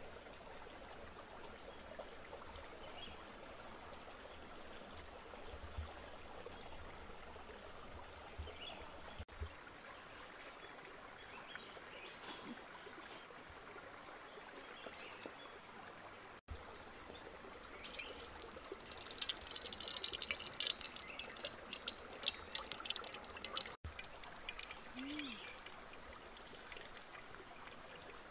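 Shallow rocky stream trickling steadily, with a few seconds of dense crackling past the middle.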